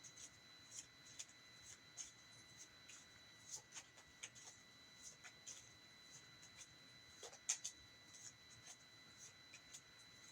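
Faint, scattered light taps and rustles of tarot cards being handled on a table, with the sharpest click about seven and a half seconds in, over a faint steady high whine.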